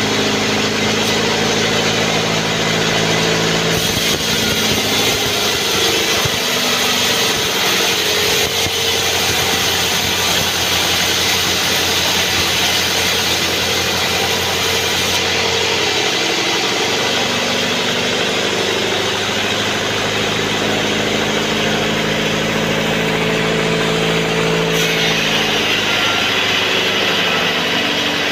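Sawmill band saw and its drive engine running steadily. From about four seconds in to about fifteen seconds, and again near the end, the steady hum turns into a harsher hiss as the blade cuts through albasia (sengon) wood.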